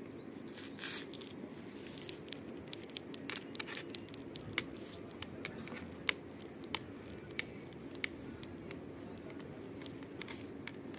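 Irregular light clicks and scratches from a kitten's claws catching on a blue seat cover and a dangled fluffy string toy as it bats at them, over a faint steady hum.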